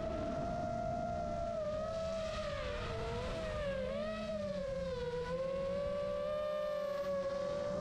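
Motors and propellers of an iFlight Chimera 7 Pro FPV quadcopter whining in flight, heard from the on-board camera. The pitch wavers with throttle, dipping and splitting into several crossing tones around the middle, over a low rumble of wind on the microphone.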